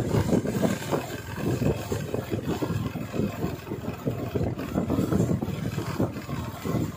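Wind buffeting a moving microphone: an uneven, gusty low rumble with no steady engine tone standing out.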